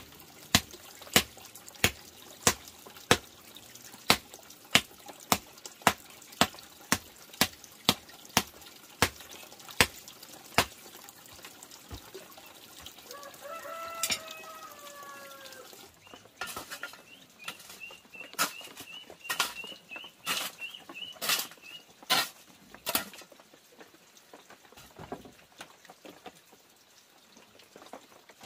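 Hoe blade striking packed clay earth in a steady rhythm, about one and a half blows a second, for the first ten seconds. A rooster crows once, falling in pitch, about halfway through, followed by scattered shovel scrapes and knocks against the earth with quick chirping.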